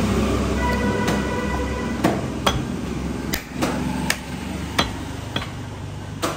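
A butcher's knife striking a wooden chopping block while cutting beef: about ten sharp, irregular knocks.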